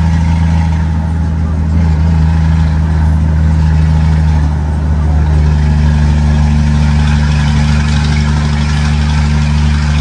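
Scania 124 truck's straight-piped six-cylinder diesel heard from inside the cab, running steadily under way with a deep, even note. It dips briefly about four and a half seconds in, then carries on with a slightly higher tone added.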